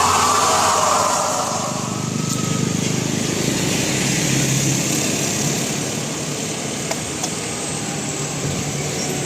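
Road vehicle engine and tyre noise from passing traffic, louder at first and easing off about a second and a half in, then running on steadily. No telolet horn sounds.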